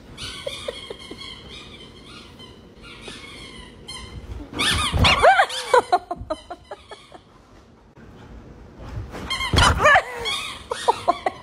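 A dog vocalizing in two loud outbursts, one about halfway through and one near the end. Each outburst is followed by a quick run of short, sharp sounds.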